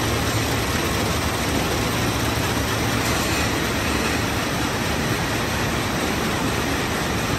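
Steady machine noise of a PP tape extrusion line running at production, its bank of tape winders spooling yarn onto bobbins: an even, unchanging noise with a low hum underneath.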